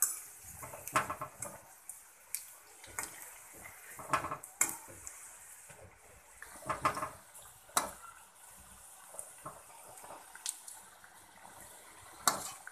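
Fritters deep-frying in hot oil in a metal kadai, a steady sizzle, while a slotted spoon clinks and scrapes against the pan about a dozen times at irregular moments as they are turned.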